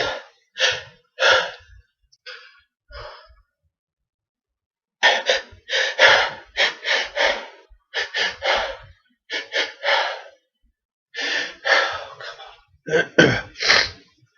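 A man with a cold taking quick runs of sharp, gasping breaths, several a second with a short pause about a third of the way in: the build-up to a sneeze that does not come.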